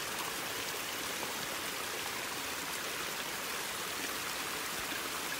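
Runoff water running in a small woodland creek, a steady rushing that cuts off abruptly at the very end.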